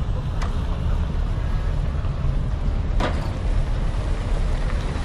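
Steady low rumble of a Yutong coach's diesel engine as the bus moves slowly at close range. Two sharp clicks come through, one near the start and one about three seconds in.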